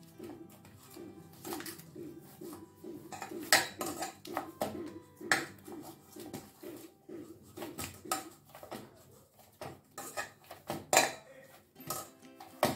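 Stiff wheat-flour and semolina dough being kneaded by hand in a stainless steel bowl, with irregular metallic knocks and clanks as the bowl is pushed and jolted during kneading.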